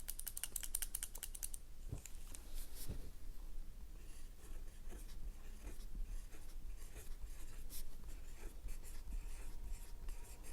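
Mechanical pencil with 0.7 mm Pentel Hi-Polymer lead writing on paper: irregular scratchy strokes with small ticks. A quick, even run of clicks comes first, over about the first second and a half.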